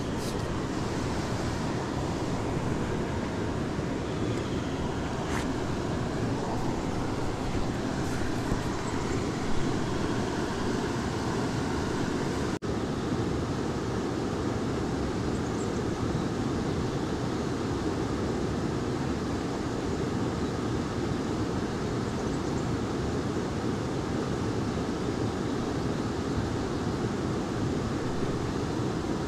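Steady rushing of river water, an even noise without tones that stays constant throughout and drops out for an instant about twelve seconds in.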